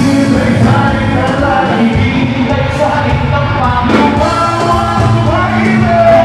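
Live rock band playing a song with a singer, loud amplified music with held sung notes.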